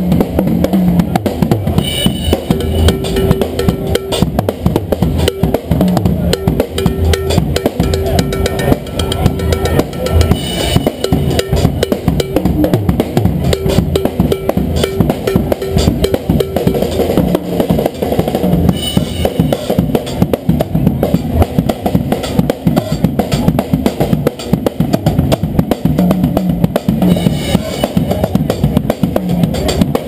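Acoustic drum kit played on the street: a busy, unbroken stream of bass drum, snare and cymbal strokes.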